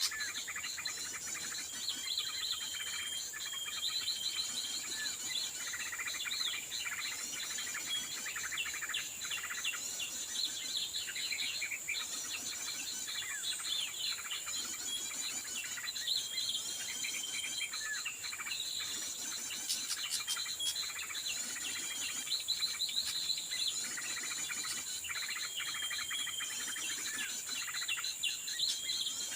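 Many small birds chirping and calling continuously, with a few short level whistles recurring every several seconds, over a steady high-pitched insect drone.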